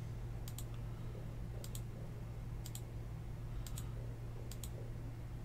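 Computer mouse button clicked five times, about once a second, each click a quick double tick of press and release, over a low steady hum.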